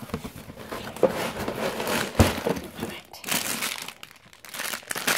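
Clear plastic bags of Lego pieces crinkling and rustling as they are handled and pulled out of the box, with a couple of sharp knocks about one and two seconds in.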